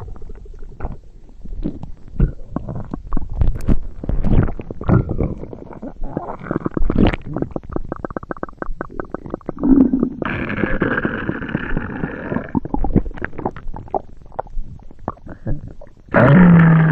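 Stomach gurgling and rumbling: an irregular run of gurgles and small pops. A steadier, higher gurgling stretch comes about ten seconds in, and a loud rumble starts near the end.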